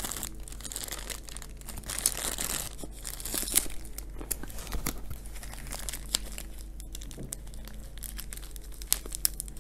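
Thin plastic bag crinkling and rustling as it is worked off a small plant's soil ball by hand, with many irregular sharp crackles.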